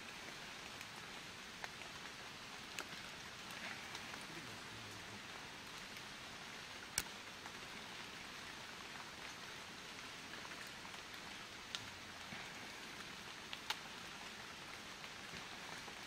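Light rain: a steady hiss with scattered sharp drop ticks, the loudest about seven seconds in.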